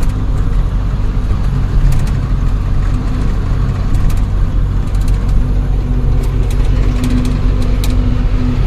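Ashok Leyland 1214 truck's diesel engine running steadily under way, heard from inside the cab, with a few light clicks now and then.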